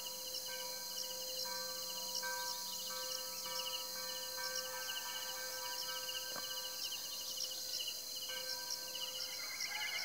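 Insect chorus: crickets chirping in a steady repeating rhythm over a continuous high-pitched insect whine, with a brief trill near the end.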